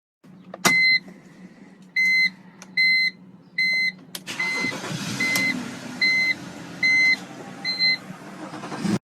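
A BMW's electronic warning chime beeping repeatedly, about one short beep every 0.8 seconds, over a steady low hum. About four seconds in there is a sharp click, after which a louder rushing noise runs under the beeps.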